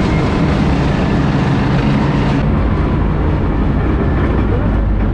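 Tank engine running loudly with track and running-gear clatter as the tank drives. About two and a half seconds in the sound turns duller and more muffled, as heard from inside the driver's compartment.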